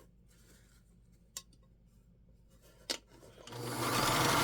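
Vintage Kenmore sewing machine starting up about three and a half seconds in and running steadily, a low motor hum under a fast rattle of the stitching mechanism. A couple of sharp clicks come before it.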